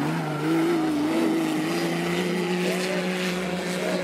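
Off-road 4x4's engine held at steady revs under load. Its pitch climbs a little in the first second, then holds level.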